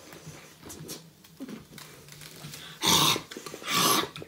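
A person's harsh, forceful breaths out through the mouth, two loud ones about a second apart near the end, from a mouth burning with hot sauce and raw onion.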